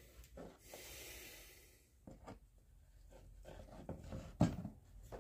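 Light handling noises: a brief rubbing hiss about a second in, then a string of small clicks and knocks, the loudest a sharp knock near the end.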